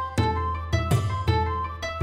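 Background music: a gentle plucked-string melody, one note about every half second, over a steady low bass tone.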